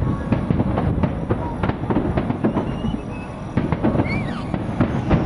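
Aerial fireworks going off in quick succession, a dense string of bangs and crackles with no let-up.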